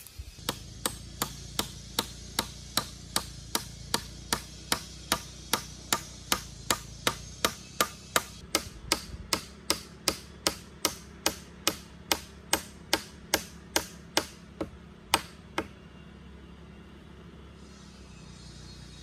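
Hammer striking at a joint of a wooden pole frame, about forty steady blows at roughly two and a half a second, the last one the loudest, stopping a few seconds before the end.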